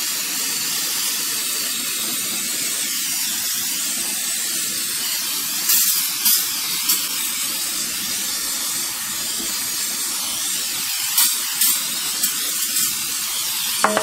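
Aerosol cleaner can spraying in one long continuous hiss, with a few brief louder spurts about six seconds in and again near the end.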